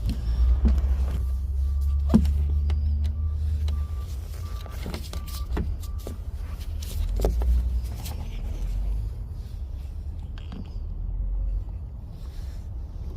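Scattered clicks and knocks of a Chevy Cruze exterior door handle and its small plastic parts being handled and worked at the door, over a steady low rumble. A faint repeating beep sounds during the first few seconds.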